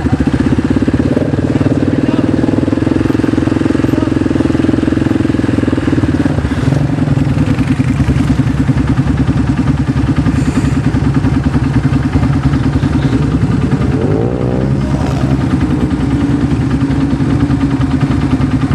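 Off-road vehicle engine running steadily at a fairly constant speed, the note shifting slightly about six seconds in.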